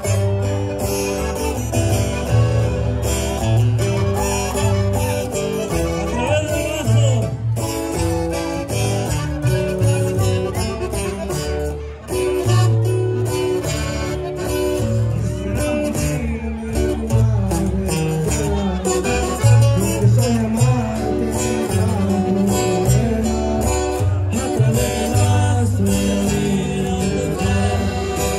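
A live band playing, with a singing voice over guitar and a pulsing bass line; an accordion is in the lineup.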